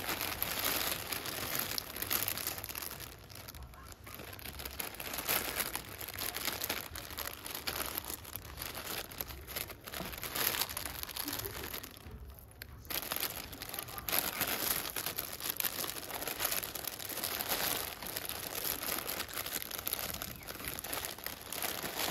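Clear plastic bags crinkling and rustling as a hand pushes through beaded necklaces hanging in them, in an irregular run with a couple of brief lulls.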